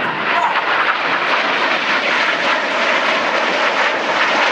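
Several BAE Hawk T1 jets with Rolls-Royce Turbomeca Adour turbofans flying past in close formation: a steady, even jet rush with no break.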